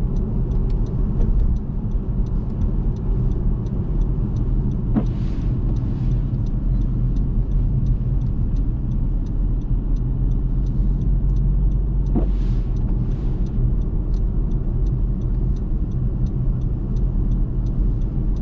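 Steady low engine-like rumble, as of a car running, with a fast, even ticking over it and two brief whooshes, about five and twelve seconds in.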